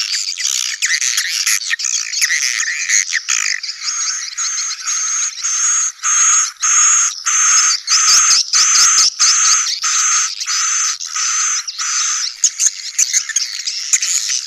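Swiftlet colony lure call: a dense mass of swiftlet chirps and twitters. From about four seconds in it settles into a regular series of calls about two a second. It is the colony sound used to draw young swiftlets into a new nest house.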